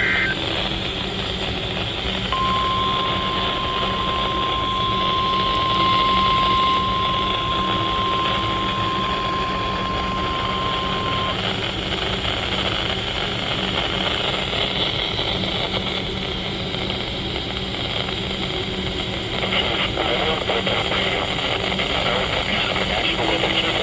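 Weather radio receiver hissing with static and a low steady hum, and about two seconds in, a single steady alarm tone near 1 kHz that sounds for about nine seconds and stops: the NOAA Weather Radio 1050 Hz warning alert tone that announces a severe thunderstorm warning.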